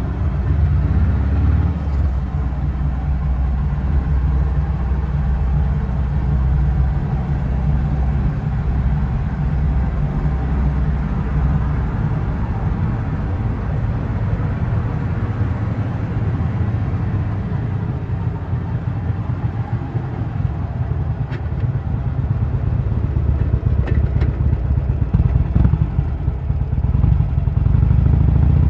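Harley-Davidson Sportster's V-twin engine running as the motorcycle is ridden in city traffic, its pitch shifting now and then and growing louder over the last few seconds.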